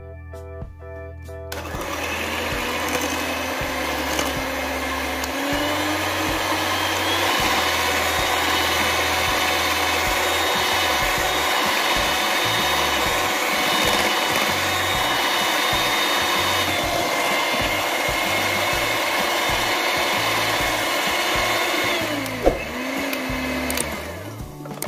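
Electric hand mixer running at high speed, its twin beaters whipping egg, sugar and emulsifier batter toward stiff peaks. The steady motor whine starts about a second and a half in and climbs slightly in pitch. Near the end it dips, recovers and then stops.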